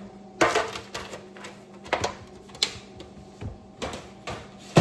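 Tin pans being handled and set down: a series of light clatters and sharp knocks, with a louder clatter about half a second in and another near the end.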